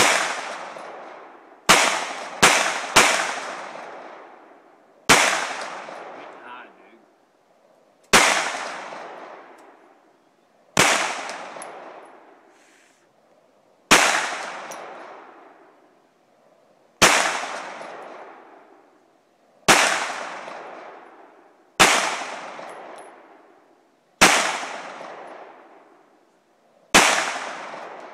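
Glock 17 Gen 4 9 mm pistol firing thirteen shots, mostly one every two to three seconds, with three in quick succession near the start. Each shot is followed by a long echo that dies away over a couple of seconds.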